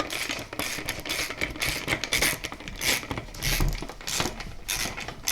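Bike parts being handled during assembly: a quick run of scraping and rattling strokes, one to three a second.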